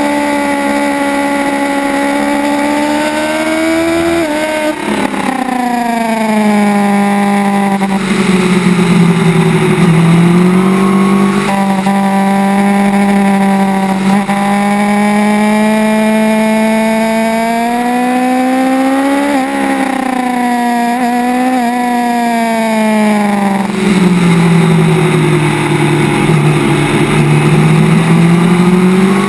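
Kawasaki ZX-10R's inline-four engine heard from on board at track speed. Its pitch falls sharply about four seconds in, bottoms out around ten seconds, holds steady, then sinks again to a low near the end before climbing.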